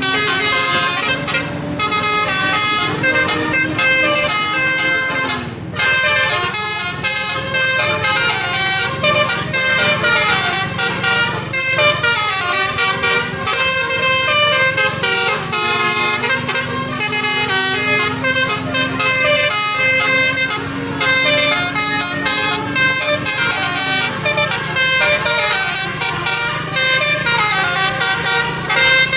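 Telolet basuri musical air horn on a tour bus playing quick stepping melodies without pause. Beneath it, the bus engine rises slowly in pitch twice and drops back sharply each time, about five seconds in and again near the end.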